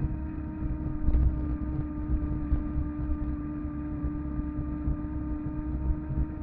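Electric fatbike (250 W, 48 V) riding at steady speed: the electric motor gives a constant whine, with the tyres rumbling on asphalt and wind buffeting the microphone. A single knock about a second in.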